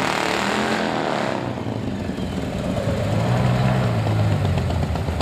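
A performance car's engine and exhaust as it drives by. The pitch bends over the first second and a half, then settles into a steadier low note.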